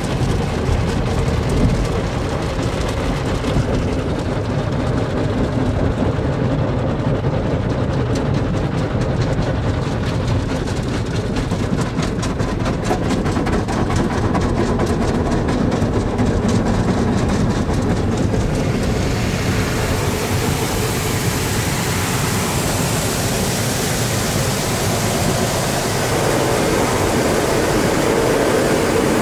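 Car wash machinery heard from inside the car's cabin: a loud, steady rumble with a fast flutter. About two-thirds of the way through, a strong hiss joins in and runs on.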